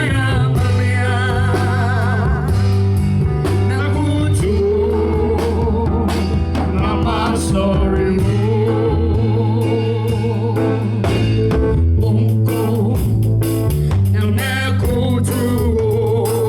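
Live band playing with a singer: a steady bass line, drums and guitar under a wavering sung melody, in a gospel-leaning style.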